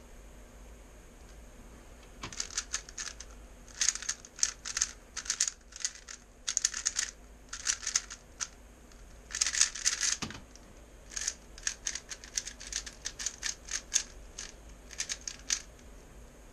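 A 3x3 speedcube being turned fast by hand: bursts of rapid plastic clacking as the layers snap round, with short pauses between the bursts. The turning starts about two seconds in and stops shortly before the end.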